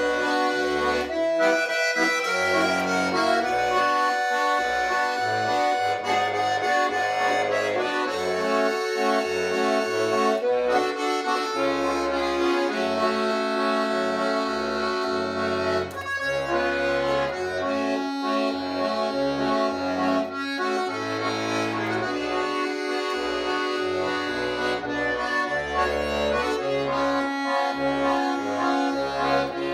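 Tula bayan, a Russian chromatic button accordion, playing solo: a sustained reedy melody and chords over bass notes from the left-hand buttons.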